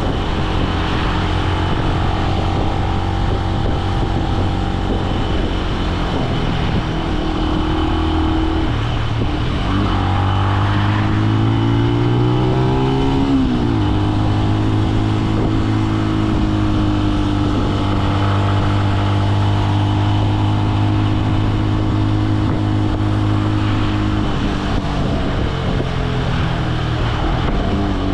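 Benelli BN125's single-cylinder 125 cc four-stroke engine under way. The revs climb about ten seconds in and drop sharply at an upshift. The engine then holds a steady speed before easing off near the end.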